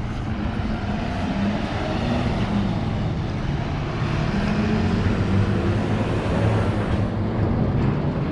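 Street traffic: a steady rumble of vehicle engines and tyres, with a low engine hum that swells a little past the middle.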